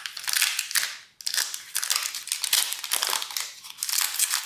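Pokémon booster pack's foil wrapper crinkling as it is torn open and handled: a dense run of sharp crackles with a brief pause about a second in.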